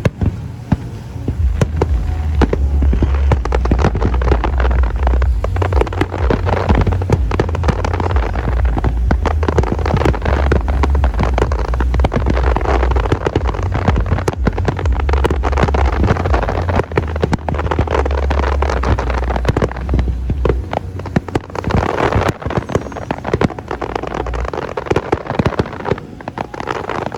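Fireworks display: a continuous barrage of bangs and crackles over a deep rumble, the heavy rumble dropping away about twenty seconds in and leaving lighter crackling.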